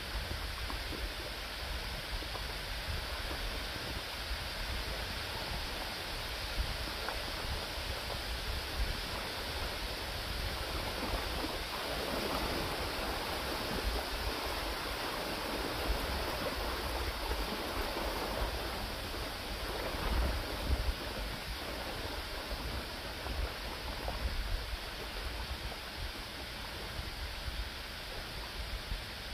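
River waves washing onto a sandy shore, swelling into a stronger wash about halfway through as a bigger set of waves breaks along the bank. A low rumble runs underneath.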